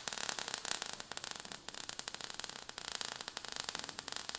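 Fire-and-sparks sound effect: dense, rapid crackling over a steady hiss.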